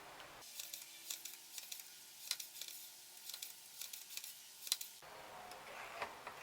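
Scattered light, sharp metallic clicks and taps, about a dozen in a few seconds, as an eyelet-setting tool in an unpowered drill press presses eyelets into a Kydex sheath.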